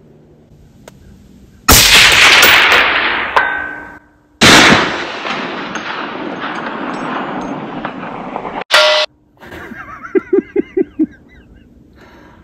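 Rifle shot followed by a long rolling echo, and about a second and a half later a faint ring from a steel gong hit downrange. A second shot-like blast with a long echo comes about three seconds after the first. Near the end there is a rapid run of short pitched notes.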